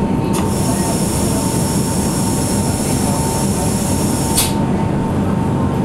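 Electric rack-railway car of the Monte Generoso line running, heard from inside the car: a steady rumble with a faint constant whine. About half a second in, a high hiss starts, and it cuts off sharply about four seconds in.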